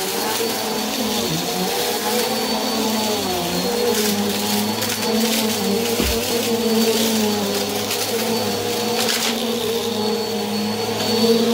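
Bissell bagless upright vacuum cleaner running steadily, its motor hum wavering slightly in pitch as it is worked over the floor, with a faint high whistle. Scattered short crackles of gritty debris are being sucked up.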